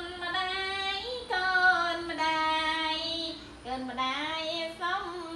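A high-pitched voice singing a slow, wordless-sounding melody of long held notes, each about a second, sliding between pitches with short breaks.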